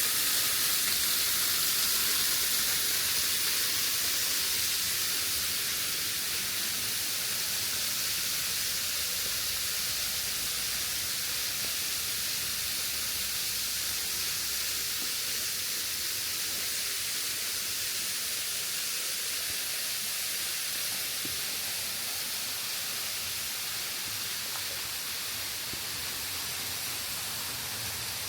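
Waterfall rushing in a steady hiss of falling water, easing slightly in level over the first few seconds.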